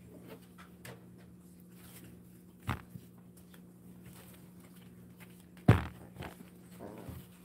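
Two sudden knocks, a small one and then a much louder one about three seconds later, over a steady low hum.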